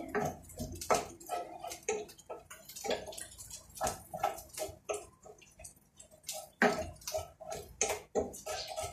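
A metal spoon scraping and knocking inside a plastic jar while scooping out mayonnaise: an irregular run of clicks and taps with short scrapes between them.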